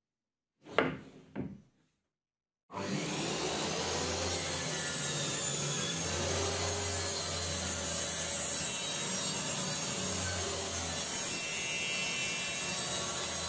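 Two short sharp knocks, then a homemade table saw running steadily as it cuts plywood, starting suddenly about three seconds in, with a constant motor hum under the noise of the blade in the wood.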